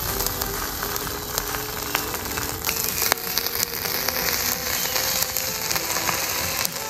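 Background music with steady crackling and hissing under it: a glowing-hot metal ball sizzling against jelly.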